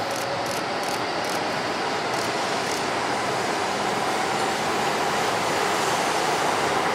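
Nishi-Kyushu Shinkansen Kamome N700S train pulling away from the station and accelerating: a steady rushing rumble that grows slowly louder, with a faint motor whine rising in pitch as it gathers speed. A quick run of sharp high clicks sounds during the first few seconds.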